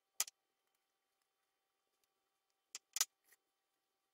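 A few short clicks and knocks of crockery on a stone countertop, a ceramic bowl and a cut-glass plate being handled: one near the start, then a louder double knock about three seconds in as the bowl is set down.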